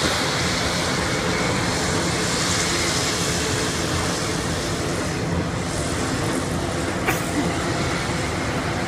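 Steady, loud engine noise from a large transport aircraft flying at an air display, with one short click about seven seconds in.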